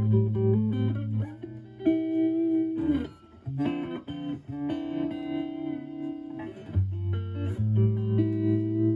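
Clean electric guitar (HSH Stratocaster through a Marshall Valvestate's clean channel) playing held chords and single notes through a Joyo JF-09 analog optical tremolo set to its lowest intensity and slowest rate.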